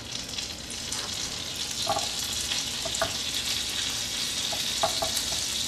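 Melted butter and oil sizzling in a frying pan: a steady hiss with an occasional small pop as the fat heats, ready for frying.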